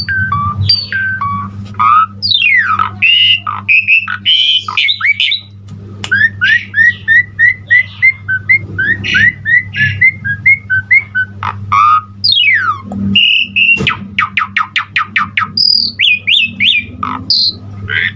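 Asian pied starling (jalak suren) singing a loud, varied song of whistles, chirps, rising and falling glides and harsh notes, packed with imitated phrases, including a fast run of sharp repeated notes about two-thirds of the way through. A steady low hum runs underneath.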